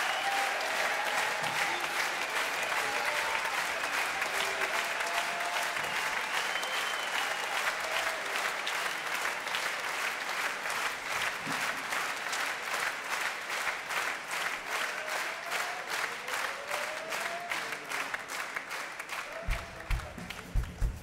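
Large concert audience applauding and cheering, the clapping falling into a steady rhythm of about two to three claps a second partway through. Near the end a drum kit starts playing.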